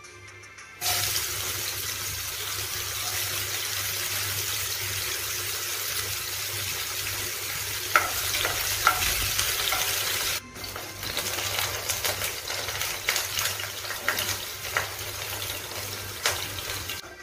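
Vegetables sizzling steadily in hot oil in a nonstick wok. First come slices of bitter gourd. About ten seconds in, more pale vegetable pieces are dropped into the oil, and the sizzle turns rougher, with scattered sharp clicks.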